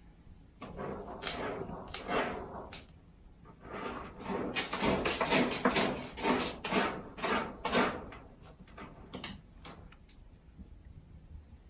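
A cat scratching: a quick series of rough scraping strokes that comes thickest in the middle and thins out toward the end.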